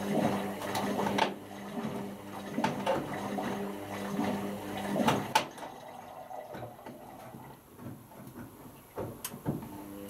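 Indesit IWC6165 washing machine washing: the motor hums as it turns the drum and the load knocks and sloshes, then the drum stops about five seconds in and it goes quieter, with a couple of sharp clicks.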